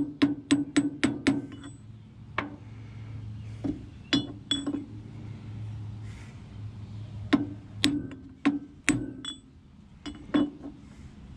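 Steel tools striking metal on a tractor's axle housing. A quick run of sharp, ringing clinks for the first second or so is followed by scattered single taps and clinks.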